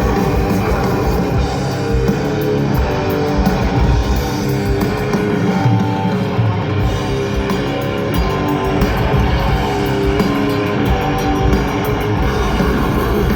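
Death metal band playing live: distorted electric guitars, bass and drums, loud and unbroken.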